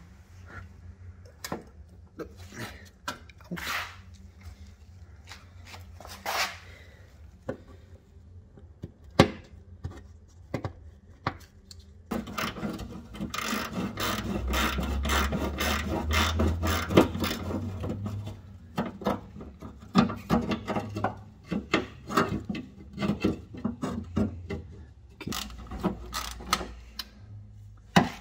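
Hand work on the car's front-end parts: scattered clicks and knocks of tools and metal or plastic pieces, with a stretch of rubbing and scraping in the middle as parts are worked loose.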